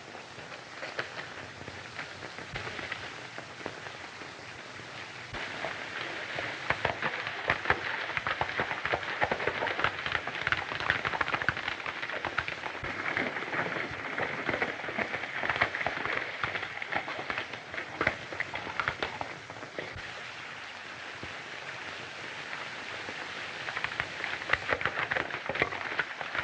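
Rustling and crackling of people pushing through dense brush: many small irregular snaps and clicks over a hiss, louder through the middle stretch.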